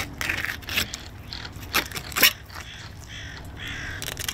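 A fillet knife working through a salmon along its backbone, giving a few sharp scraping clicks as the blade meets bone. In the last second and a half a bird calls several times in quick succession.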